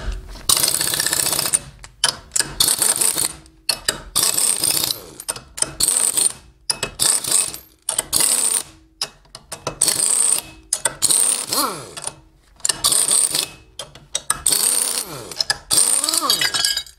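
Pneumatic wrench running in about ten short bursts of a second or so each, some winding down with a falling whine between bursts. It is turning the two bolts of a puller in turn, pressing the wheel cheek off a Buran snowmobile's suspension bogie.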